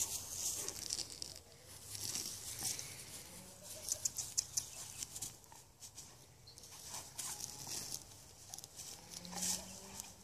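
Great Dane puppy tearing and chewing at weeds in a lawn: crackling and rustling in short, uneven bursts.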